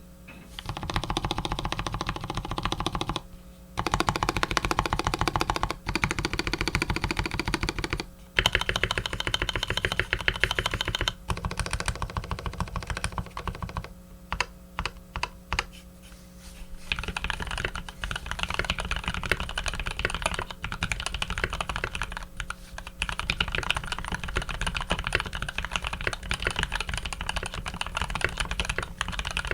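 Typing on an Eo87 custom mechanical keyboard with lubed, filmed Cherry Top H1 switches, PBT keycaps and an aluminium plate. It is a rapid, dense run of keystrokes with a few short pauses, and a handful of slower single presses about halfway through.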